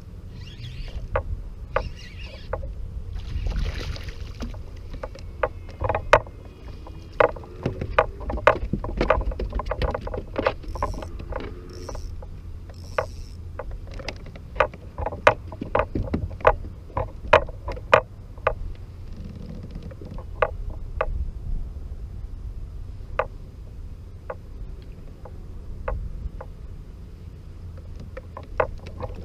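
Sharp, irregular clicks and knocks of fishing gear on a plastic kayak, coming thick for a stretch in the middle and sparser toward the end, over a steady low rumble of wind on the microphone.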